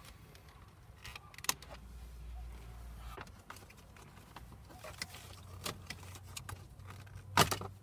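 Plastic dashboard trim of a Toyota Camry clicking and knocking as panels around the steering column are handled and unclipped, with one loud, sharp snap near the end.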